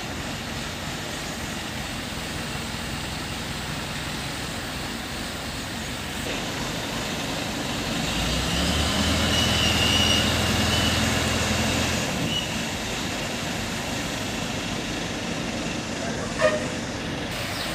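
Diesel engine of an ACE pick-and-carry mobile crane running as the crane drives by with a suspended machine load. It is loudest as it passes close, from about 8 to 12 seconds in, when a high whine joins the engine note. A single sharp knock near the end.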